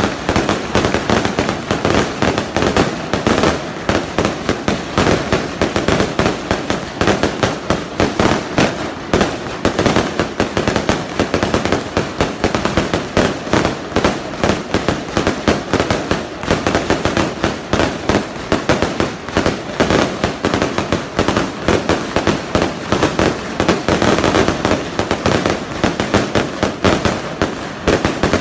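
Aerial firework shells bursting in a dense, continuous barrage: a rapid run of bangs, many a second, with no pause.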